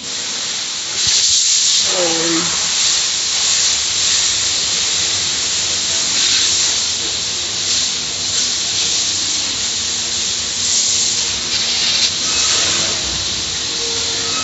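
Car wash water spray hissing steadily, heard from inside the car, starting about a second in.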